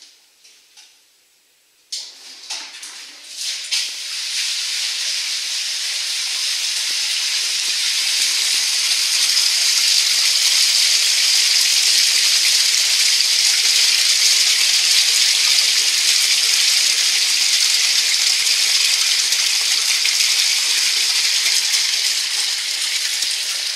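Water pumped through a hose gushing into a flood-test tank on the outside of a window. It starts suddenly about two seconds in with a few splashes, then builds into a loud, steady rushing hiss.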